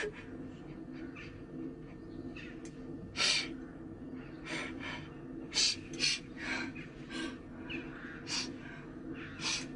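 A woman sobbing, with sharp gasping breaths at irregular intervals, over a faint steady hum.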